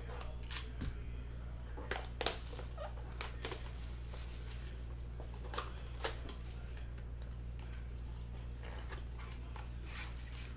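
Shrink-wrap on a cardboard trading-card blaster box being slit with a utility knife, then the box torn open and handled, giving scattered crinkles, snaps and scrapes, loudest about two seconds in.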